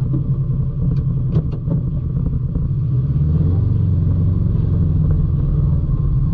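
ATV engine running steadily under way on a gravel trail, with a few short knocks about a second in.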